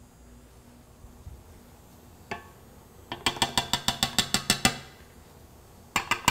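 A metal measuring cup rapped quickly against the rim of a stainless steel stand-mixer bowl to knock the flour out: a single knock, then about a dozen sharp, ringing taps in a second and a half. A couple of metal clicks follow near the end.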